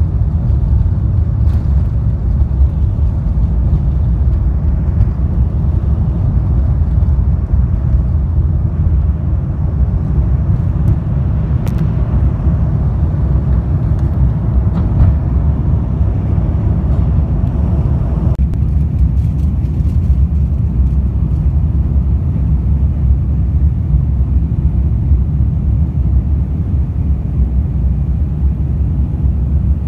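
Cabin noise of a jet airliner taking off and climbing: a loud, steady, deep rumble of engines at takeoff power and wheels on the runway. About 18 seconds in the upper part of the rumble drops away, leaving a smoother engine drone.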